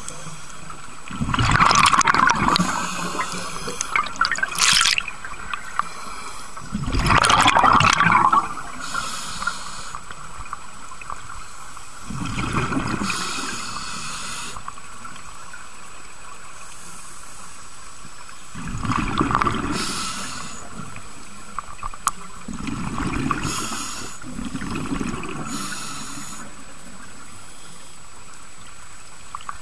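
Scuba diver breathing through a regulator underwater: about five loud bursts of exhaled bubbles gurgling out, several seconds apart, with a fainter hiss of each inhaled breath between them.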